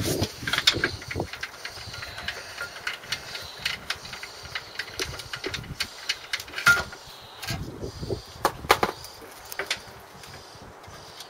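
Irregular metallic clicks, taps and clinks of a hand spanner working the bolts of a Land Rover Series 3 clutch pressure plate off the flywheel.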